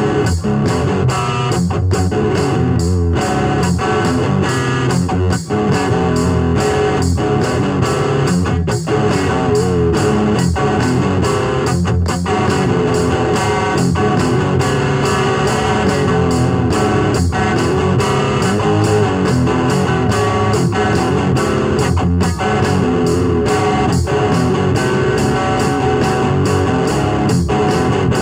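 Music with guitar, playing steadily with a regular beat.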